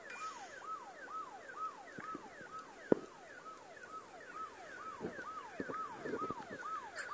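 Repeating siren-like electronic warble, each note rising quickly then falling, a little over two a second. Handling clicks and thumps come in over it, with one sharp tap about three seconds in.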